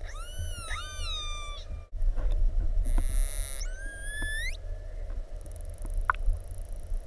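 Dolphin whistles heard underwater: several overlapping rising and falling whistles in the first second and a half, a short buzzy burst about three seconds in, then one sharply rising whistle, over a low water rumble.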